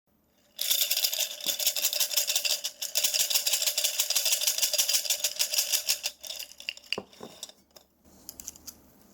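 Rapid, continuous rattling of many small hard objects shaken together. It starts suddenly, runs for about five seconds, then thins out into a few scattered clicks.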